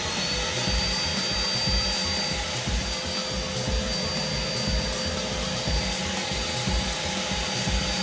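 Vacuum-cleaner motor of a homemade cyclone dust extractor reaching full speed in the first half second, then running steadily: a high whine over a rush of air.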